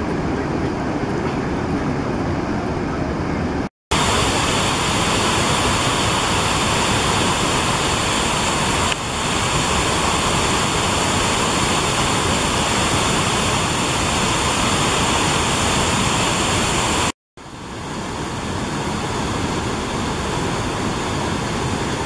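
Large waterfalls on the Genesee River pouring over rock ledges: a loud, steady rush of falling and churning water. It breaks off for an instant twice, and the stretch between the breaks sounds brighter and hissier.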